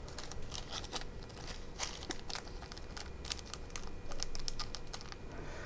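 Small plastic zip-lock parts bags crinkling and rustling as they are handled, with many light irregular ticks and clicks of small plastic parts being picked out.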